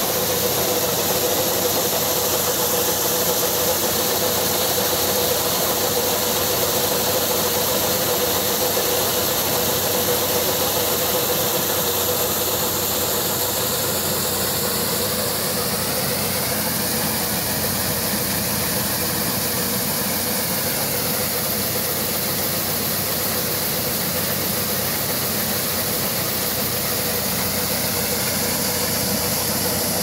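Tractor-driven maize sheller running steadily while shelling corn cobs, a continuous machine noise with a steady hum and a high hiss as kernels pour out of the chute.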